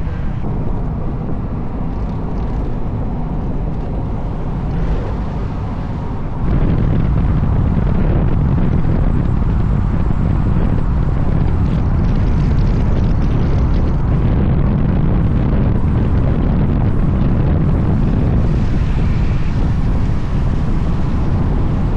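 A car driving: steady engine and road rumble with wind noise, stepping up in level about six seconds in and holding there.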